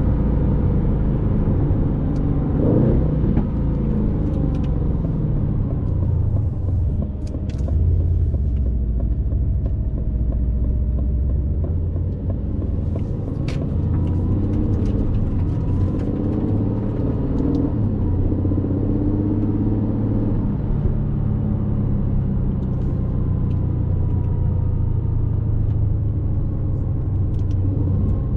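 Aston Martin Vantage's 4.0-litre twin-turbo V8 running while driving, its pitch rising and falling as the revs change.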